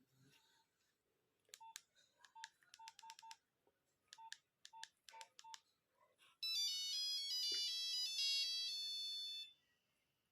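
Nokia 1100 mobile phone: about a dozen keypad presses, each a click with a short beep, then a monophonic ringtone melody plays for about three seconds and stops abruptly.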